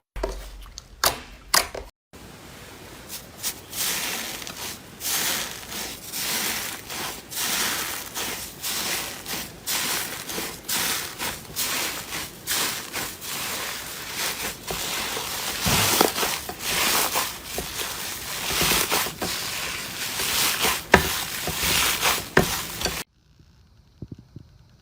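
Slime being squeezed and pressed by hand, giving a dense run of crackling clicks. It cuts off suddenly near the end.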